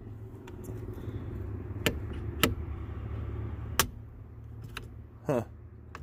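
A few sharp metallic clicks and clinks as quick-release steering wheel hub parts and tools are handled on the steering column, the loudest three about two, two and a half and nearly four seconds in, over a steady low hum.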